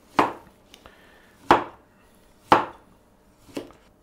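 Chinese cleaver slicing through a cucumber and striking a wooden chopping board: four chops, about one a second, the last one softer.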